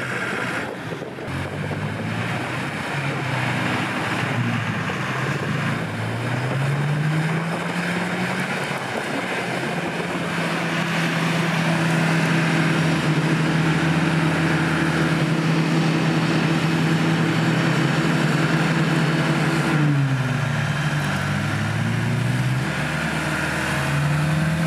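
A 4x4's engine working hard in mud: it revs up a few seconds in, holds at high revs for about ten seconds, drops back, then revs up again near the end. A steady rushing noise runs alongside it.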